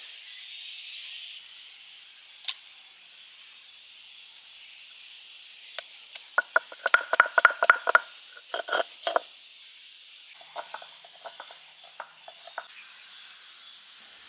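Granite roller knocking down on a stone grinding slab to crush ginger and garlic: one sharp knock about two seconds in, then a fast run of a dozen or so ringing knocks, then lighter, sparser taps near the end.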